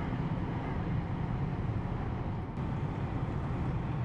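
Steady low drone of a passing inland cargo vessel's diesel engine.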